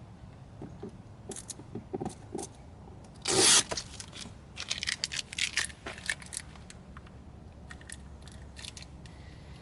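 Rubber all-weather floor mat being handled and pushed into place in a car footwell: irregular scraping, rubbing and tapping, with one louder, half-second scrape a little over three seconds in.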